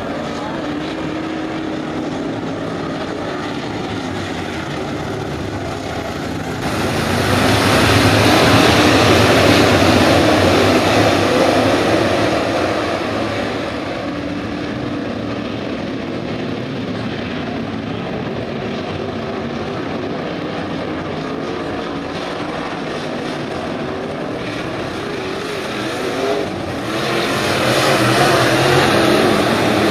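A field of IMCA Modified dirt-track race cars running at race speed, their V8 engines droning together. The sound swells louder about seven seconds in, eases off after a few seconds, and swells again near the end.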